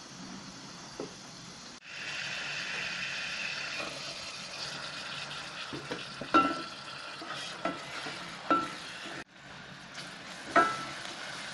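Chopped garlic and shallots sizzling in melted margarine in a stainless steel pot while a wooden spatula stirs them. The sizzle gets louder about two seconds in, and three sharp knocks ring off the pot, the last near the end.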